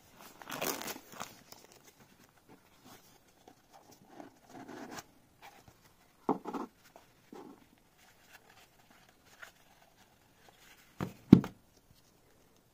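Cardboard packaging being handled: rustling and sliding of a small kraft-cardboard box and its inner tray, with a few short knocks, the loudest near the end.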